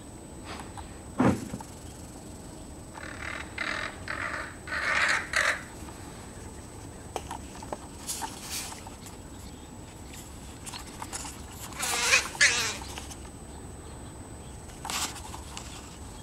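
Crows cawing in several runs of harsh calls, the loudest about twelve seconds in: mobbing calls as they drive off a hawk. A single sharp knock about a second in.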